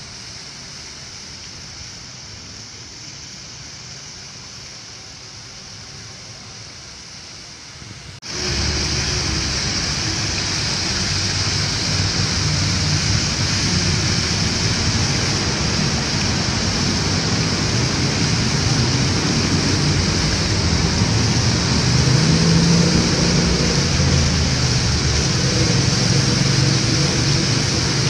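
Fountain water pouring over the rims of a large tiered stone fountain's bowls and splashing into the pool below, a steady rushing splash. It gets abruptly much louder about eight seconds in and stays loud.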